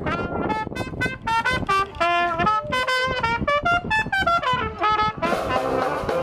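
Brass band of trumpet, saxophone, trombone and sousaphone with bass drum and snare, playing a tune. It starts as a run of short, quick notes, and about five seconds in the whole band comes in fuller.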